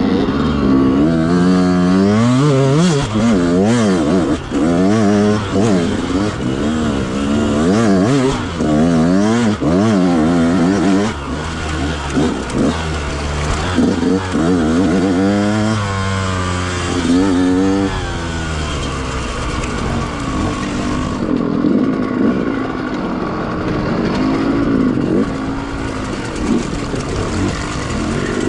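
Yamaha YZ125X's 125cc two-stroke single-cylinder engine revving up and down over and over in quick throttle bursts. Its revs settle lower and steadier about two-thirds of the way through.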